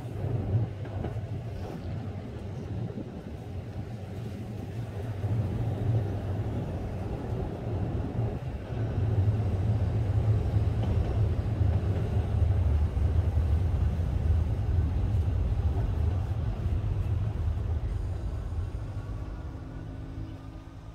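Wind buffeting a smartphone microphone on the upper deck of a moving double-decker tram, a gusty low rumble with the tram's running noise beneath it. It grows louder partway through and fades out near the end.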